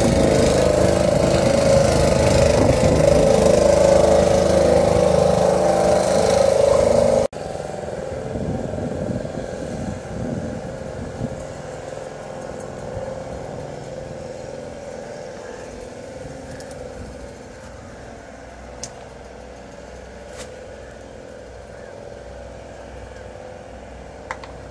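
A boat's engine running steadily, cutting off abruptly about seven seconds in. After that it is much quieter: a faint low hum with a few small clicks.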